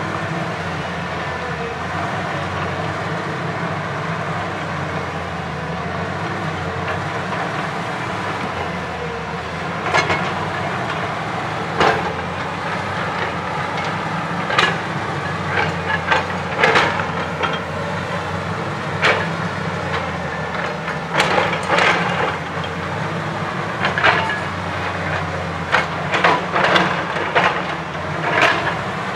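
Tracked JCB excavator's diesel engine running steadily as it digs. From about ten seconds in come sharp clanks and knocks of the steel bucket against rock and stones, every second or two, getting more frequent near the end.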